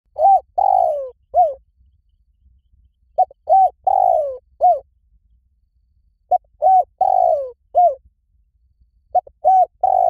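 Spotted dove cooing. Each phrase has a few short coos and one longer coo that falls in pitch, and the phrase repeats about every three seconds: three full phrases and the start of a fourth near the end.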